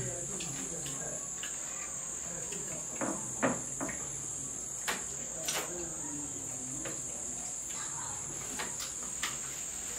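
Steady high-pitched chirring of crickets, with scattered short smacks and clicks of someone eating soup.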